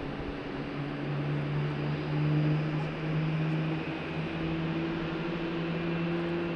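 Airbus A380's four Rolls-Royce Trent 970 turbofans running at taxi power as the jet rolls slowly: a steady low hum whose pitch creeps slowly upward, over a broad rushing noise.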